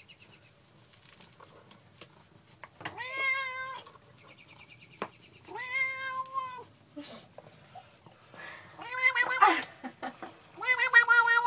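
Tabby cat meowing: four drawn-out meows a few seconds apart, the last two louder and harsher.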